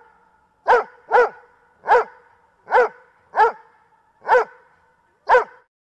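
A dog barking: seven short barks about half a second to a second apart.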